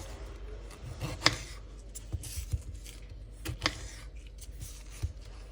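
Kitchen work: scattered sharp clicks, taps and light scraping of utensils and food being handled, over a steady low hum.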